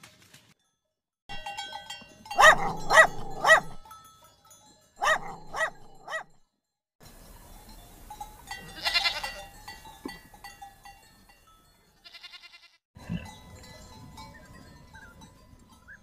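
Goats bleating in a run of short animal-call clips: three loud repeated calls a couple of seconds in, two more around five seconds, a bleat about nine seconds in, then a brief ringing sound.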